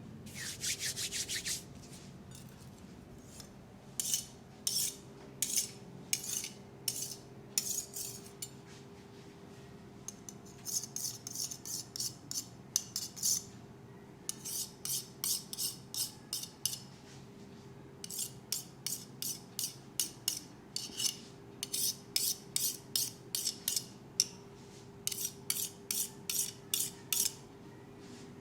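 Hands rubbing through hair and over the scalp in a head massage, making short scratchy strokes about three a second in runs with short pauses. A faint steady hum sits underneath.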